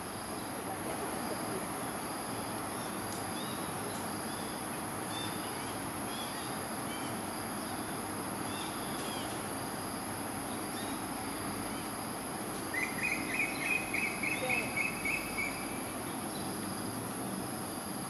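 Steady chorus of crickets and other insects, a constant high drone with a pulsing trill beneath it, with scattered small chirps. About thirteen seconds in, a quick run of about ten chirps lasts a little under three seconds.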